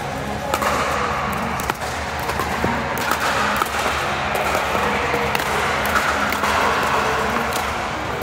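Pickleball paddles striking a plastic ball: sharp pops about every second or so, over a steady background din.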